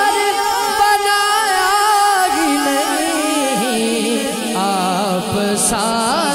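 A man singing a naat into a microphone. He holds one long note for the first two seconds or so, then moves into ornamented melodic runs.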